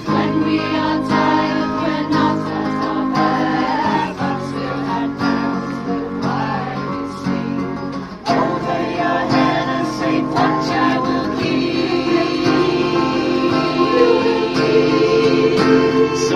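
A choir singing long held notes to strummed acoustic guitars.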